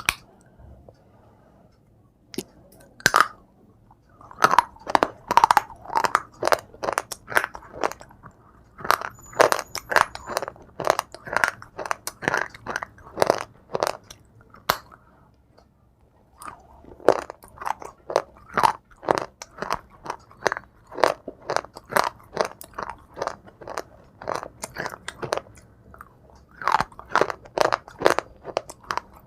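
A person biting and chewing brittle white shale: a string of sharp crunches, about two a second, with a short break around the middle.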